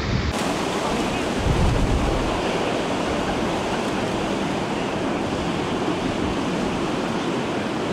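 Rough surf breaking, a steady wash of noise, with wind buffeting the microphone in low rumbles, strongest about one to two seconds in.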